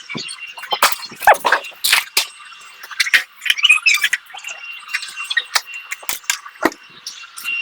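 Irregular clicks, taps and clinks of small hard objects being handled, several a second in clusters.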